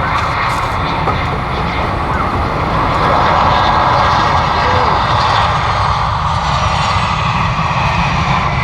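Jet airliner's engines running steadily as it passes on arrival, getting a little louder about three seconds in.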